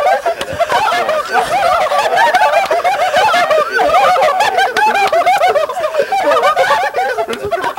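Several people laughing and talking over one another in high voices, a dense, unbroken tangle of giggles and chatter.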